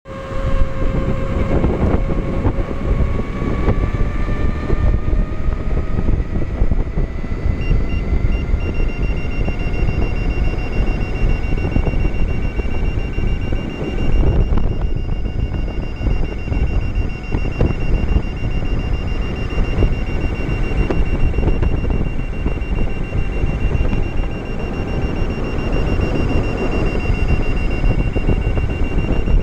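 Wind rushing over the microphone of a Veteran Sherman electric unicycle ridden at high speed. The hub motor's whine rises in pitch over the first few seconds as the wheel accelerates. About eight seconds in, a high-pitched alarm tone starts with a few short beeps and then sounds continuously.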